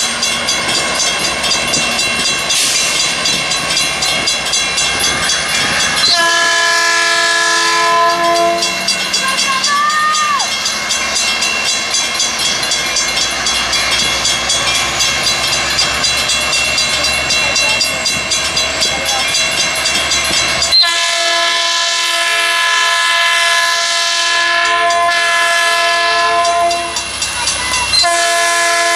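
Metrolink diesel locomotive sounding its multi-tone air horn twice: a short blast about six seconds in, then a long blast of about seven seconds near the end as the train draws into the station. The train is running under both blasts.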